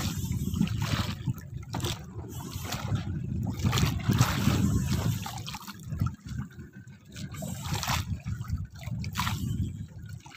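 Sea water splashing and trickling against the side of a small outrigger fishing boat in choppy water, over a steady low rumble.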